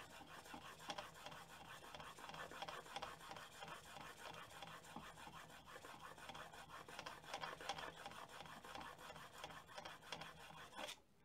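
A plane blade held in a Veritas Mk II honing guide is pushed back and forth on a 1000-grit sharpening stone. It makes a soft, rhythmic scraping rub of steel on stone as the edge is polished after the burr has been raised. The rubbing stops about a second before the end.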